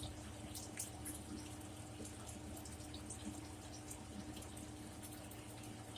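Faint chewing and wet mouth clicks, scattered irregularly, from someone eating crispy cheese taco shells, over a steady low electrical hum.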